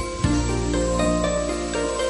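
Soft instrumental background music, gentle plucked-string notes over sustained low tones.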